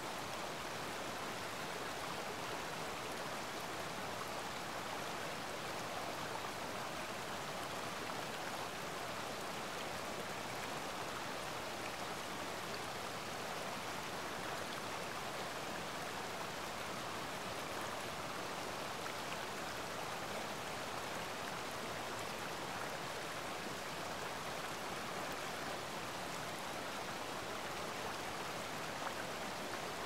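Mountain stream flowing: a steady, even rush of water.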